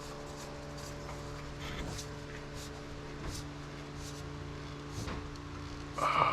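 Steady low hum with a few faint ticks and taps, and a short louder sound near the end.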